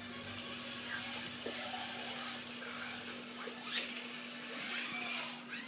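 Battery-powered toy car running around a plastic track set: a small electric motor whirring with a steady hum, and plastic rattling as it travels, with one sharper click about two-thirds in.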